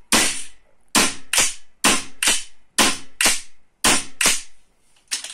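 A Golden Eagle AR-15 gas blowback airsoft rifle dry-firing with no BB, barrel or hop-up chamber, its bolt cycling on each shot. About ten sharp reports sound in quick succession, often in pairs.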